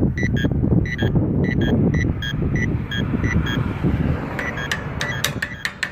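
Accessible pedestrian crosswalk push-button signal beeping in quick short tones, about three a second, then giving sharp clicks for the last second or two, over steady road traffic.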